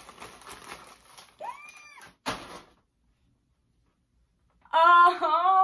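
Faint rustling with a short rising squeak and a click, then, after a pause, a woman's long, high, excited squeal, held about two seconds, as she holds up a new plush tiger.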